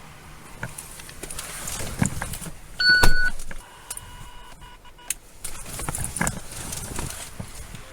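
Patrol car door shutting with a loud thump about three seconds in, with a short electronic beep at the same moment and a fainter steady tone for about a second and a half after. Clicks and rustling of gear come before and after.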